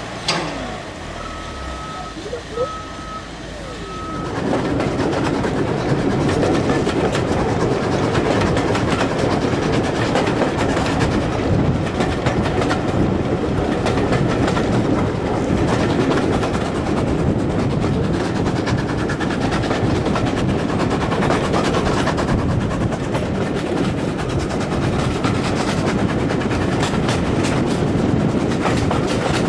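Three short electronic beeps of a reversing alarm in the first few seconds. Then a steam-hauled train runs along the line, heard loud and close from an open carriage window: a steady rush of wheels on rail and wind, thick with fine rail clicks.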